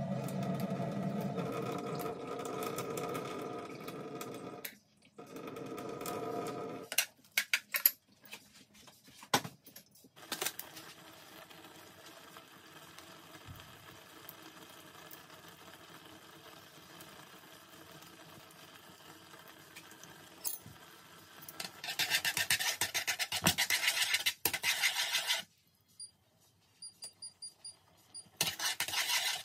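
Kitchen cooking sounds: water poured off a saucepan of instant noodles into a stainless-steel sink, a few clicks and knocks, then chopsticks stirring and scraping noodles in the saucepan in rapid strokes. A few faint high beeps sound between the bursts of stirring.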